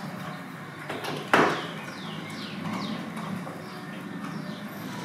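Door lock hardware being worked at the edge of an entry door: a few light clicks, then one sharp clack about a second and a half in.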